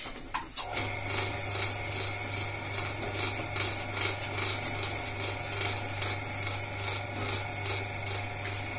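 Electric potter's wheel starting up after a few clicks, then running with a steady motor hum, while hands shape wet clay on it with a rhythmic rubbing and scraping about three times a second.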